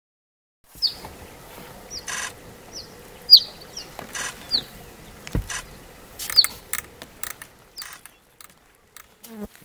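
A bird calling in short, high, falling chirps at irregular intervals, among scattered clicks and rustling. It begins about a second in, after a moment of silence.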